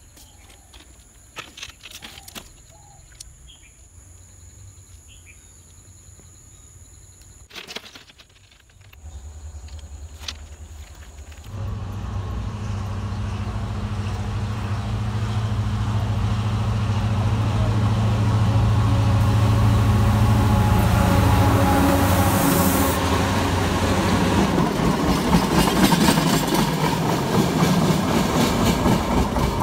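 A train approaching and passing close by: a low steady engine drone comes in about a third of the way through and grows loud, and near the end the wheels clatter rhythmically over the rails. Before the train arrives there are only a few faint clicks and handling noises.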